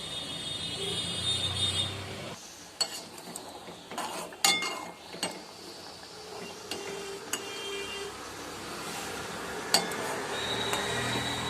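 A spoon clinking and scraping against a small aluminium pot as the boiling herbal brew is stirred: a scatter of sharp metallic clicks over a steady hiss.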